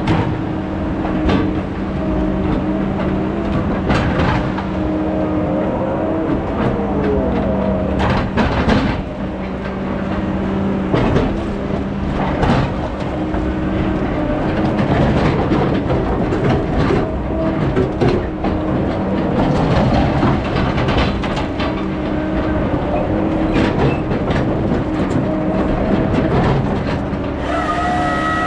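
Heavy logging equipment's diesel engine running steadily, with frequent clanks and knocks of the machine at work; a higher whine joins about a second before the end.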